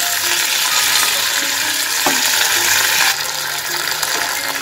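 Curry leaves sizzling in hot coconut oil with mustard seeds and dried red chillies in a small tempering pan. The sizzle is steady and eases a little about three seconds in.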